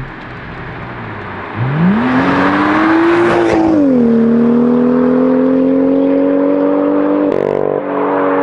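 BMW M2 F87's turbocharged N55 straight-six through a 3.5-inch straight-pipe valved exhaust, accelerating loudly: about a second and a half in the revs climb quickly, drop at a gearshift about four seconds in, then climb slowly again, with a short break at another shift near the end.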